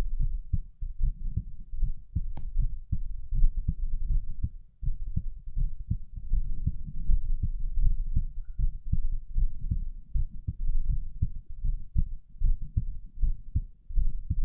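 Human heartbeat picked up at the chest during abdominal exercises: a steady run of low, dull thumps over a low rumble, with one sharp click about two seconds in. The heart rate is only moderately raised.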